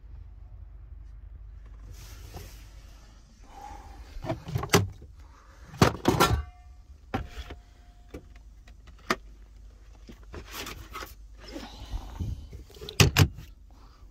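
Clatter of a truck cab's overhead storage lockers being opened and things handled: a series of knocks and clicks, one followed by a short metallic ringing, over a low steady rumble.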